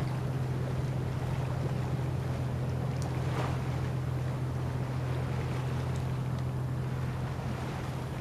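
Boat motor running at a steady low drone, with wind and water noise over it.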